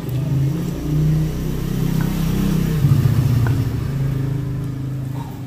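A motor vehicle engine running close by and revving, its low drone rising and falling in pitch and easing off near the end. It is louder than the talk around it.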